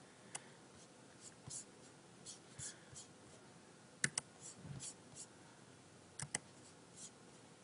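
Faint, scattered clicks and taps from a laptop's keyboard and touchpad buttons, with a sharp double click about four seconds in and another about six seconds in.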